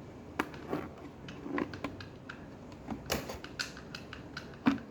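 Hard plastic parts of an RC boat being handled: scattered light clicks and knocks, a few of them sharper around three seconds in and near the end.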